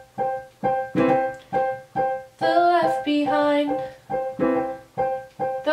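Piano chords struck in a steady repeated rhythm, about two to three a second, accompanying a song. A woman's singing voice comes in over the chords for a moment about halfway through.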